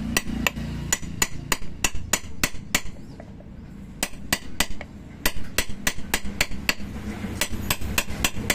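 Rapid light metal-on-metal taps, about four a second with two short pauses: a 12 mm steel rod being knocked against the shaft of a blender blade mounting to drive it out. The shaft stays stuck and does not come free.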